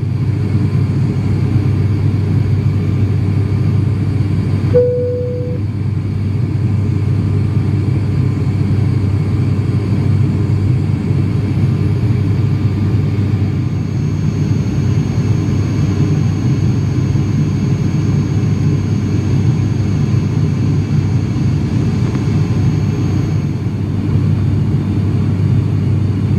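Steady cabin drone of an ATR 42-600's twin turboprop engines and propellers climbing after take-off, heard from inside the cabin beside the propeller. About five seconds in, a short single beep sounds over the drone.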